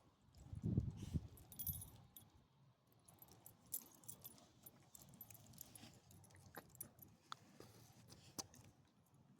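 Faint, light metallic jingling and scattered clicks, with a few low thuds in the first two seconds.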